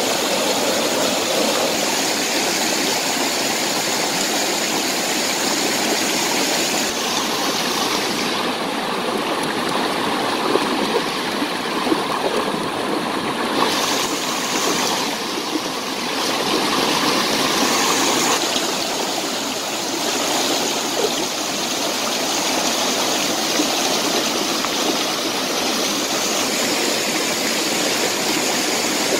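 Shallow rocky river rushing over stones: a steady, even wash of water noise.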